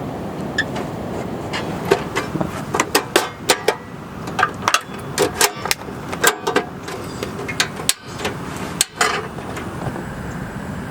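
Steady hiss of rain, with a run of sharp, irregular knocks and clicks from about two seconds in to about nine seconds in.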